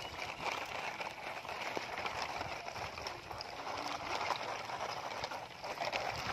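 Plastic toy dump trucks loaded with gravel rolling through shallow muddy water and over gravel: a steady splashing and trickling with many small crunches and clicks.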